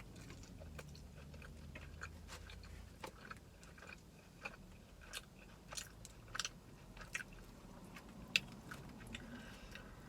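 Close-miked mouth sounds of a person chewing food, with irregular wet clicks and lip smacks; the sharpest click comes a little past eight seconds in.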